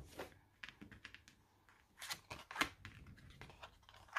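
Oracle cards being handled and turned over: a scatter of soft flicks and rustles of card stock, the clearest two about two seconds in.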